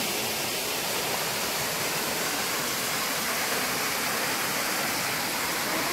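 Waterfall pouring down a sloping rock face into a shallow pool: a steady, unbroken rushing hiss.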